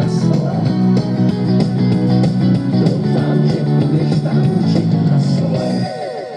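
Band music led by strummed guitars with bass, an instrumental passage after the last sung line, that stops sharply about six seconds in, leaving a short fading ring.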